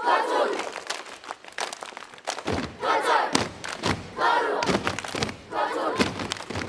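A children's kapa haka group chanting loud calls in unison, with sharp slaps and thumps of the performance's body and floor actions. There are about four strong shouts, the deeper thumps starting about two and a half seconds in.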